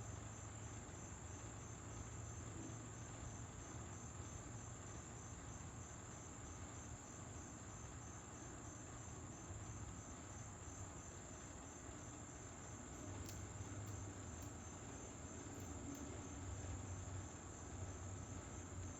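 Crickets chirping in a steady high-pitched pulse, about three chirps a second, over a faint low hum.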